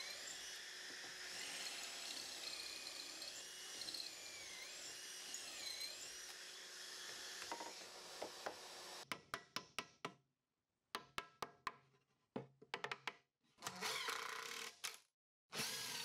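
Cordless drill boring pocket holes through a Kreg K4 pocket-hole jig, its motor whine wavering in pitch. About nine seconds in it gives way to a run of quick clicks and short bursts of a driver putting in pocket screws, cut by sudden silences.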